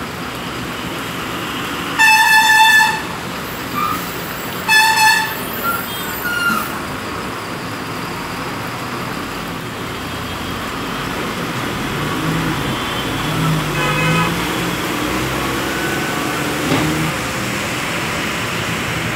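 Steady hiss of heavy rain on a wet street, with road traffic. A vehicle horn honks loudly twice, for about a second starting two seconds in and again briefly a couple of seconds later, with a fainter short honk later on. A bus engine rumbles low as it pulls away.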